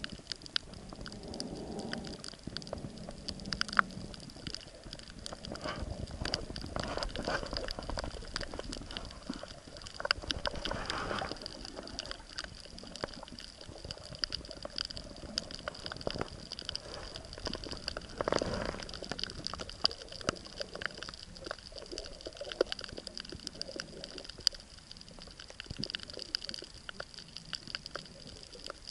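Underwater sound heard through a submerged camera: a constant crackle of tiny clicks over a thin, steady high hum, with swells of rushing water about six, ten and eighteen seconds in.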